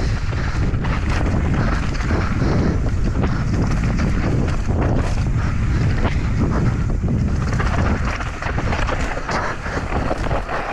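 Wind noise on a helmet camera's microphone as a mountain bike descends a loose dirt and rock trail at speed, with the tyres rolling over stones and frequent clicks and knocks from the bike over bumps.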